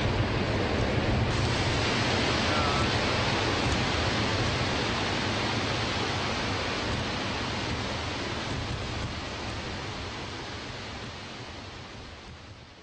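Steady rush of Niagara Falls' water pouring over the brink, a constant noise that fades out over the last few seconds.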